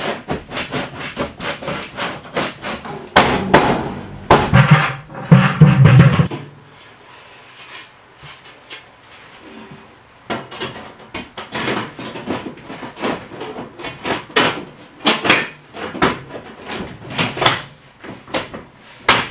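Sheet-metal clanks and knocks as a black stovepipe is worked into its wall thimble against tin wall sheathing. The loudest thumps come about four to six seconds in, then a quieter stretch before the clatter starts again.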